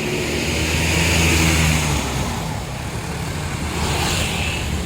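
A tour bus's diesel engine accelerating as it pulls past, loudest about a second in and then easing off.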